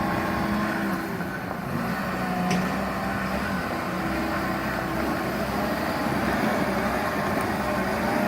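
Caterpillar 924K wheel loader's diesel engine running with a steady drone, a single sharp click about two and a half seconds in.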